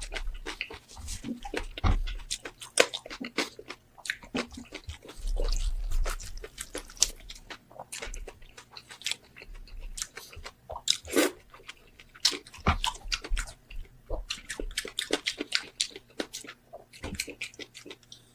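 Close-up eating sounds of roasted pork head: loud crunching bites and chewing, with many irregular sharp crackles throughout.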